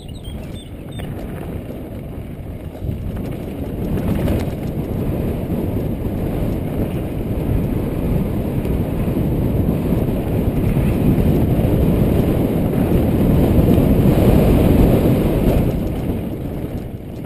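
Wind rush and rolling rumble of a mountain bike descending a gravel downhill trail at speed, picked up on a GoPro's microphone. The noise builds to its loudest about three quarters of the way through, then eases near the end.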